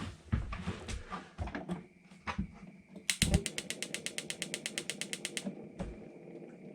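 Knocks and clunks of handling at the refrigerator, then the spark igniter of a Unique propane refrigerator's burner clicking rapidly and evenly, about ten clicks a second for a couple of seconds, while the burner is being lit. A single knock follows.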